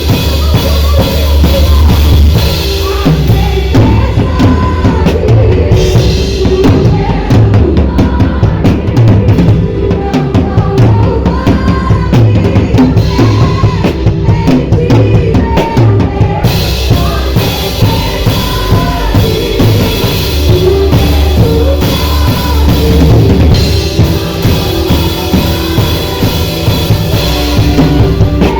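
Music driven by a drum kit: bass drum and snare keep a steady beat under a melodic line.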